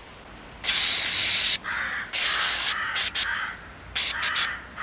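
Aerosol cleaner sprayed in bursts onto a brake caliper's dust boot to wash out dirt: one hiss of about a second, a shorter one, then a few quick short squirts.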